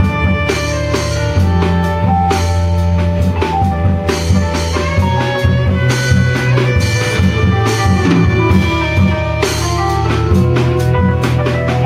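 Live jazz played by a small band: a saxophone plays a melody over bowed cello, with drums keeping a busy beat throughout.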